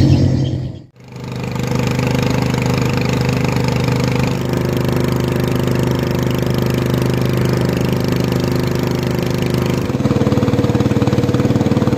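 Motor of a narrow river boat running steadily at cruising speed, a constant droning note; its pitch and texture shift slightly about ten seconds in. A short fade of music ends about a second in, before the engine comes in.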